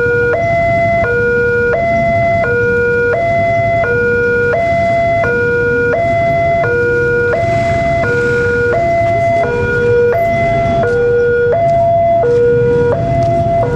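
Railroad level-crossing warning alarm sounding as a train approaches: an electronic two-tone signal that switches steadily between a lower and a higher tone, each held about two-thirds of a second. A low rumble runs underneath.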